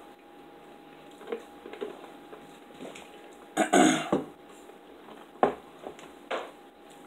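A man's short, loud, rough throat noise just after taking a drink, about three and a half seconds in. A couple of sharp knocks follow.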